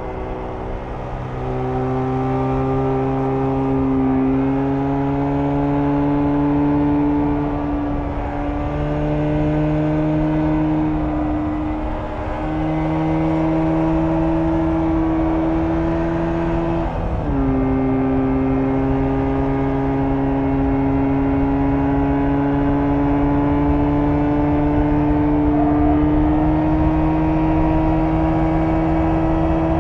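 1994 Jawa 350 type 638 two-stroke twin on its stock exhaust, running under load as the bike is ridden. The engine note climbs slowly and breaks briefly twice, as at gear changes, then drops sharply about two-thirds of the way through before climbing again.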